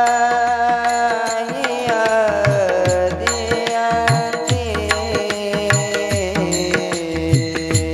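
Devotional bhajan music: a long held sung note that swoops up at its start and then slides down in steps. It is accompanied by hand-drum strokes and small cymbal taps keeping the rhythm.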